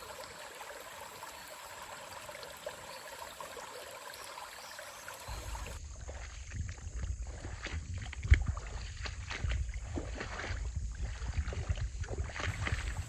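A steady faint hiss of moving creek water, then, from about five seconds in, uneven sloshing and splashing as someone wades through shallow creek water.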